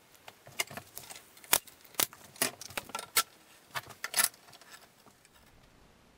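A dozen or so irregular sharp clicks and clacks as a steel bar clamp's sliding jaw is set on its bar and snugged against a wooden rail and post, with wood knocking in between. The loudest clacks come in the middle, and the sounds stop about a second before the end.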